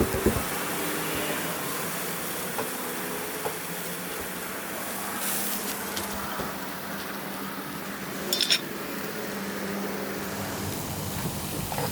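Steak slices sizzling over charcoal on a grill, a steady crackling hiss, with a short clatter of clicks about eight and a half seconds in.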